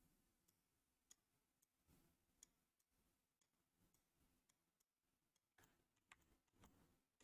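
Near silence: faint room tone with a few quiet, scattered clicks.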